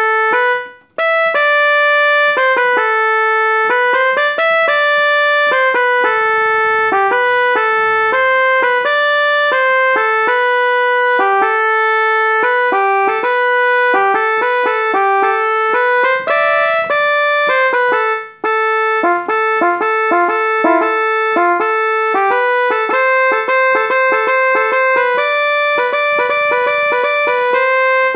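Portable electronic keyboard playing a melody of separate notes in a piano-like voice, with occasional chords. There is a brief break about a second in and another about two-thirds of the way through.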